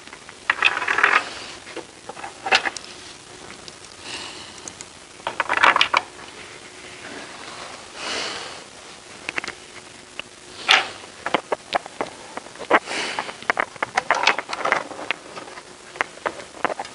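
Clicks, knocks and rustles of wooden and metal telescope parts being handled as a 17.5-inch truss Dobsonian telescope is put together. The clicks and taps come quickly in the second half, as the wooden upper cage is lifted.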